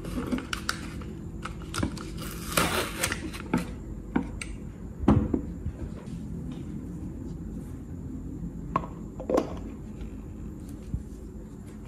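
Handling noise from a concrete-filled plastic pot mold held with metal binder clips: scattered knocks, clicks and scrapes as it is lifted off a board and set down on a wooden table, with a longer scrape about two and a half seconds in and sharper knocks around five and nine seconds.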